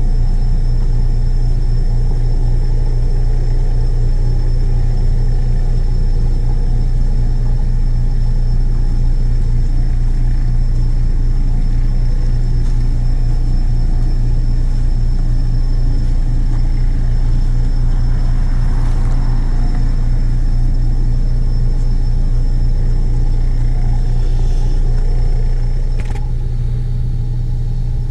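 Steady low engine rumble, like a heavy diesel truck running, with a thin steady high whine over it. About 26 seconds in there is a click, and the rumble then continues slightly quieter.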